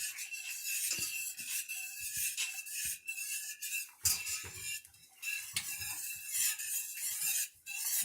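A whisk stirring sauce in a pan on the stove, scraping and clinking irregularly against the pan as butter, hot sauce and spices are mixed together.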